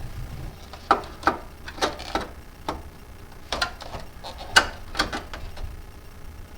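Irregular sharp metallic clicks and knocks, about a dozen of them, as a wrench is fitted to and worked on an exhaust oxygen sensor.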